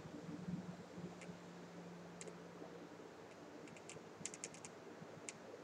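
Faint clicking of computer keys: single clicks a second or so apart, then a quick run of about five clicks a little past four seconds in.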